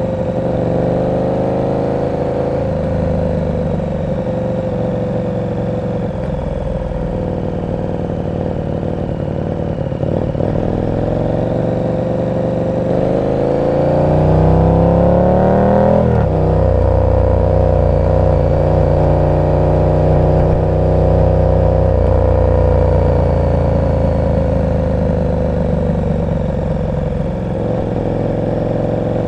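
KTM 1290 Super Duke R's big V-twin running through an aftermarket exhaust in city riding. Its pitch climbs for a few seconds around the middle, drops sharply as the rider shifts or rolls off, then settles into steady cruising.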